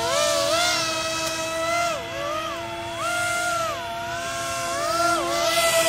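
Electric motors and fans of a small 3D-printed RC hovercraft whining. One pitch holds steady while a second rises and falls about once a second as the throttle is worked.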